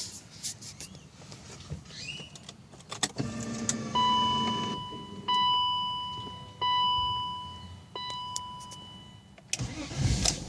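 Clicks and a jingle of keys, then a short buzz, and the 1998 BMW 528i's electronic warning chime sounding four times, each tone fading away, about a second and a half apart. Near the end a loud rumbling sets in as the engine is cranked.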